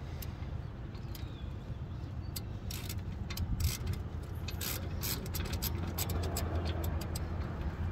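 Irregular metallic clicks and clinks of a small ratchet wrench and socket being worked by hand, over a steady low hum.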